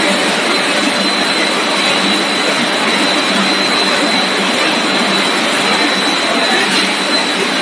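Snack-pellet extrusion line running: the extruder and its feeders and blowers make a constant, even factory din with a thin steady high whine over it.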